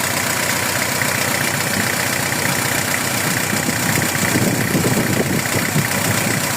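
Volkswagen van engine idling steadily, run to test a newly installed coolant expansion tank for leaks; an uneven low rumble joins from about four seconds in.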